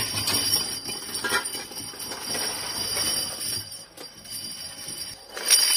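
Metal motorcycle brake shoes clattering and jingling against a steel bowl and the steel drum of a tumbling machine as they are scooped out by hand, with a loud clatter near the end. A machine runs underneath with a steady high whine.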